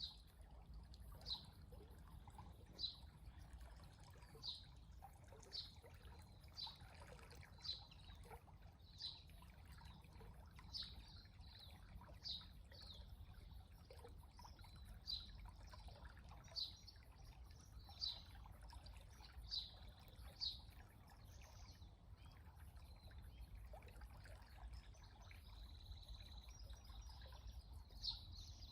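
A small stream trickling softly, with a bird repeating a short high chirp about every second and a half.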